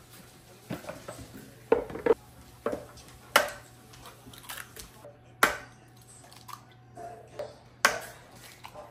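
Eggs cracked against the rim of a blender jar and dropped in: a series of sharp knocks and clicks, the loudest about two seconds apart.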